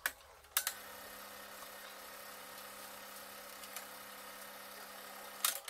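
Eumig R2000 film projector switched on with a click and running: a steady motor and cooling-fan hum, with a couple more switch clicks near the end.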